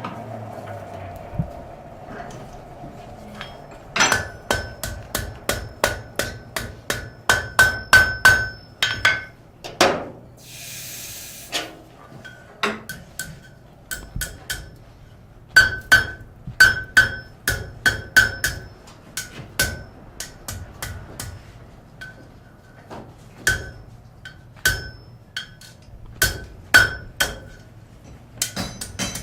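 Blacksmith's hammer striking metal on an anvil in bursts of ringing blows, roughly two to three a second, with short pauses between runs. A brief hiss comes about ten seconds in.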